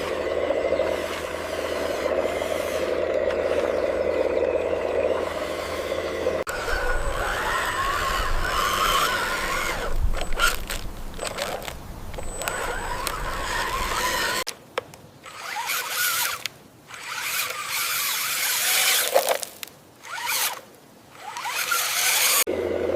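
Small electric motors and gearboxes of remote-control construction trucks whirring, with scraping. The sound changes abruptly about 6 and 14 seconds in, and cuts out briefly a few times in the second half.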